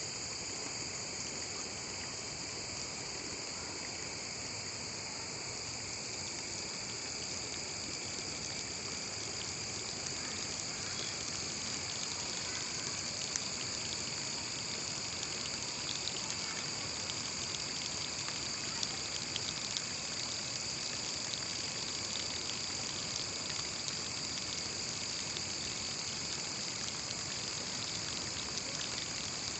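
Water trickling steadily into a concrete pond under a constant high-pitched insect drone, with a few faint clicks.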